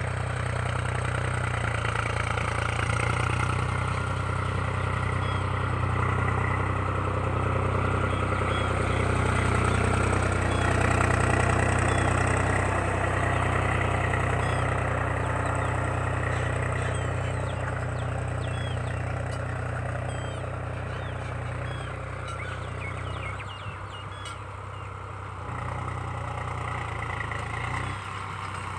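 An engine running steadily at idle: a low, even hum at a constant pitch, dropping away briefly near the end.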